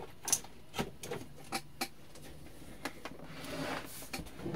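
Handling noise from a Cuckoo induction rice cooker and its power cord on a workbench: a string of light clicks and taps, then a brief scrape about three seconds in as the cooker is turned on the bench top.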